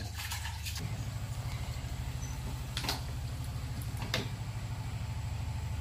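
A steady low mechanical hum, like a small engine or motor running, with a fast, even pulse that gets stronger about a second in. Two light clicks are heard partway through.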